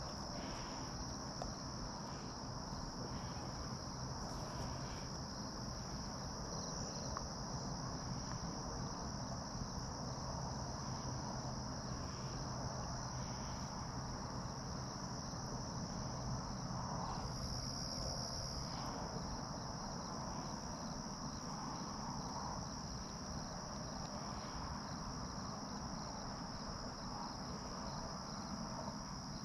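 Crickets singing as one steady, unbroken high-pitched trill, over a low, even background hiss.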